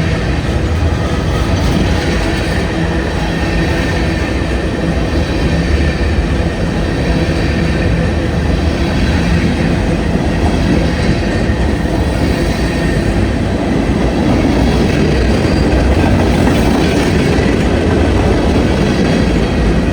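Union Pacific freight train cars rolling past close by: a loud, steady rumble of steel wheels on the rails, getting a little louder in the last few seconds.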